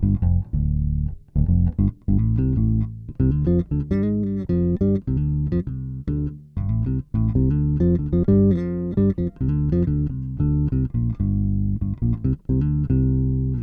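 Electric bass played through a Boss OC-2 Octave pedal set to Oct 1 50%, Oct 2 25%, direct 65%, which adds notes one and two octaves below the played note and thickens the tone. A busy line of short plucked notes, with a few brief breaks.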